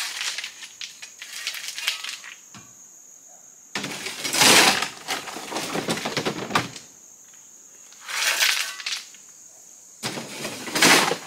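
Shovel scraping into a load of rocks in a pickup bed, with the rocks clattering as they are shovelled out onto the dirt road, in three rough bursts about a second or more long. Before these, in the first two seconds, there are scattered clicks of stone on stone.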